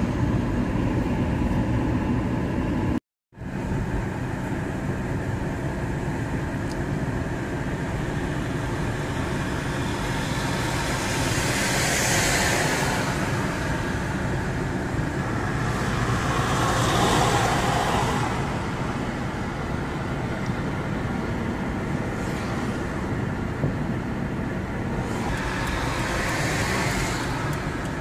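Car interior road noise while driving: a steady rumble of engine and tyres on the road. It drops out for a moment about three seconds in. Passing traffic swells up and fades away three times.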